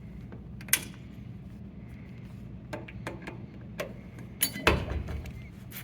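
Scattered light clicks and clinks of metal being handled, with a louder knock about three-quarters of the way through, over a steady low hum.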